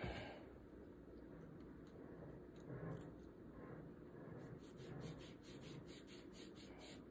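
Faint rustling and scratching of hands rubbing and moving close to a phone's microphone, opening with a brief hiss and turning into a run of quick, soft scratches over the last few seconds.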